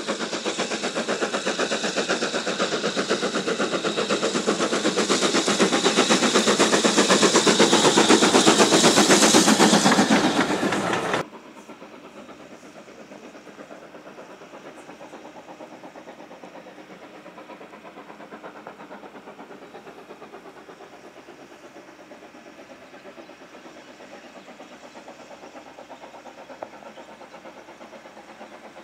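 BR Standard Class 4 2-6-0 steam locomotive 76017 working a passenger train past at close range: rapid exhaust beats over the rumble of the coaches, growing louder until about ten seconds in, then cutting off suddenly. After that the locomotive is heard faintly and steadily working in the distance.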